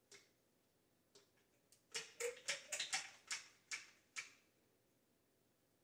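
Cabela's jerky gun, a caulk-gun-style trigger mechanism, being squeezed to push ground deer meat out of its nozzle. One click comes first and a couple of faint ones follow. About two seconds in there is a quick run of about ten sharp clicks, ending a little past four seconds.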